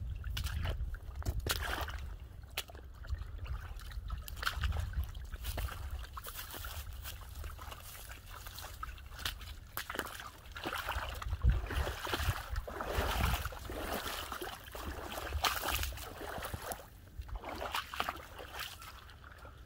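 Dogs (German Shorthaired Pointers) wading and splashing through shallow water in irregular sloshing steps. Near the end it gives way to quieter footsteps through leaf litter and twigs.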